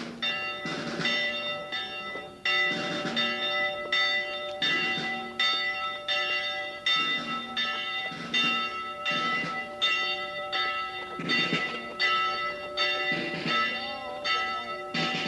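Church bells ringing, struck about one and a half times a second, their tones ringing on between strokes.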